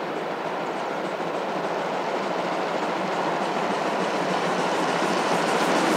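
Borsig 2-8-2 Mikado steam locomotive 06 018 approaching with a freight train, its running noise growing steadily louder.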